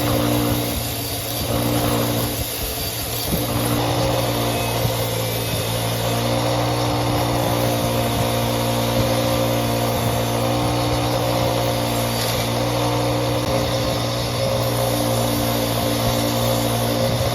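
Electric power tool motor running steadily, with a brief easing in level and pitch content a second or two in.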